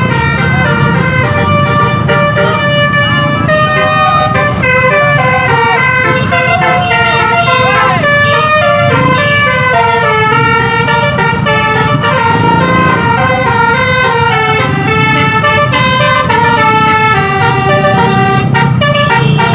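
A bus's 'telolet basuri' musical horn playing a quick melody of stepping notes, with the bus engine running underneath.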